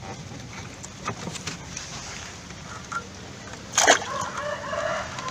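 A quiet stretch of small handling clicks, then a single splash about four seconds in as a fish goes into a keep net in pond water, followed by light sloshing.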